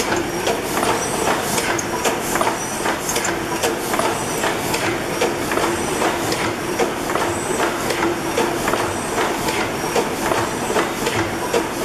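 Snow-Holly Works (Worthington) 600-horsepower horizontal reciprocating natural gas engine-compressor running, its piston rods, crossheads and valve gear making a rapid, regular clatter.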